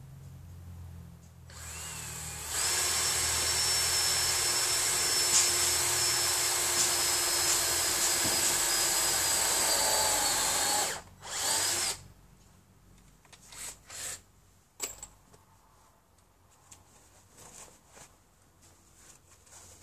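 Cordless drill-driver running into a wooden roof batten, a steady whine held for about eight seconds that sags slightly in pitch just before it stops, then a short second burst a second later. Small knocks and handling follow.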